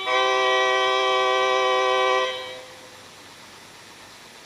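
Final held chord of a children's song, a steady chord of several notes that stops a little over two seconds in and fades away, leaving faint cassette tape hiss.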